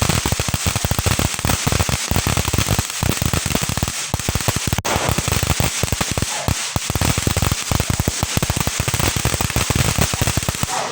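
Golden Rooster 3-minute firework fountain burning with a dense, rapid run of crackling pops, with one sharper crack about five seconds in.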